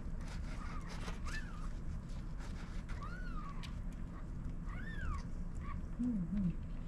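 Newborn kitten mewing: a few thin, high-pitched cries, each rising and falling, about two seconds apart, over a steady low background hum.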